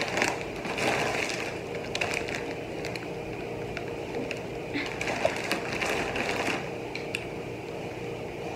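Crinkling and crackling of plastic-foil chip bags being handled, in two spells with sharp clicks among them; near the end a few light clicks as a plastic water bottle's cap is twisted.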